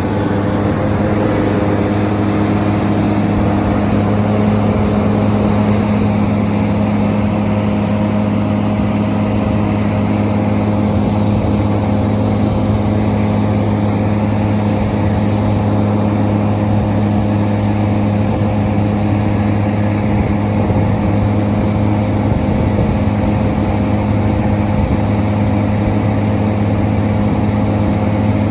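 Hitachi Zaxis 490 LCH excavator working, driving sheet piles: a loud, steady machine hum with no separate hammer blows.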